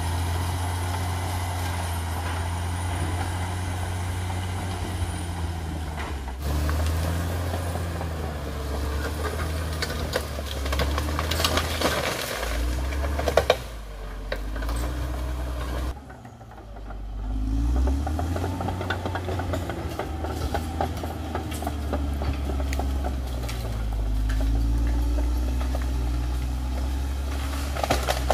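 Caterpillar D6R XL bulldozer's diesel engine running and shifting in pitch as the load changes, with metal clanks and rattles. The sound drops away briefly about two-thirds of the way through.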